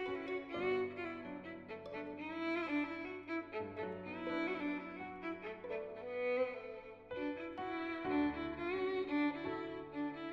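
Background music: a melody on violin over sustained lower string notes, with a brief drop in the low notes about seven seconds in.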